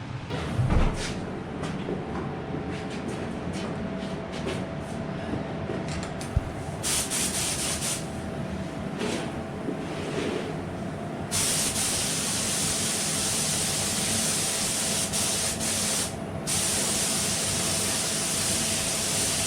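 Small HVLP spray gun spraying basecoat paint, heard as an air-and-paint hiss. First come several short trigger bursts, then about a second before the halfway mark it settles into long steady passes with one brief pause. A steady hum sits underneath throughout.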